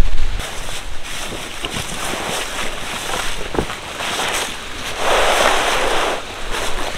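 A tarp rustling and crinkling as it is unfolded and spread over wet fallen leaves, with small crackles of leaves underneath; a louder swish about five seconds in as the sheet is swept out flat.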